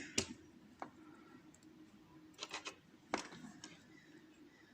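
A few light, sharp clicks and taps from the small metal parts of a pin-tumbler lock being handled while it is taken apart, scattered across an otherwise quiet stretch with a small cluster midway.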